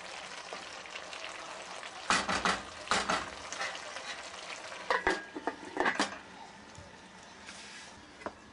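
Diced chicken breast and vegetables sizzling in an enamel pot while a wooden spoon stirs them. There are loud scrapes and knocks of the spoon against the pot about two seconds in and again around five to six seconds.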